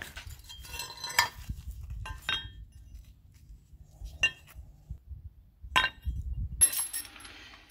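Machined metal parts clinking against each other and on stone as they are pulled apart and set down: a few separate sharp clinks with a short metallic ring.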